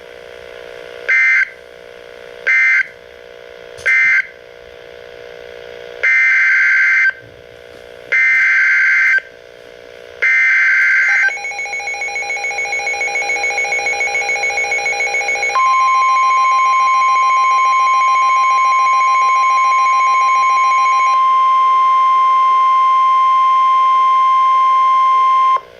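NOAA Weather Radio Emergency Alert System data tones. First come three short squawking bursts, the SAME end-of-message code closing the previous warning. Then come three longer bursts of about a second each, the SAME header for the next warning. A pulsing electronic beep starts about eleven seconds in, and from about fifteen seconds a steady 1050 Hz warning alarm tone sounds until the end.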